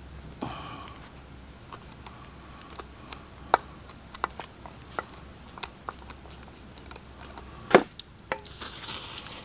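Tools and metal carburetor parts clicking and tapping as an old two-barrel carburetor is taken apart: a string of separate sharp clicks, the loudest a clack about three-quarters of the way in, then a short hiss near the end.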